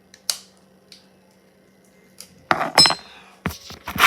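Hard objects being handled: two light clicks, then a clatter of knocks about two and a half seconds in with a brief metallic ring, followed by a few more knocks.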